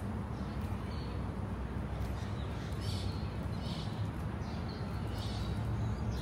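Outdoor ambience: birds calling in several short chirps over a steady low background rumble.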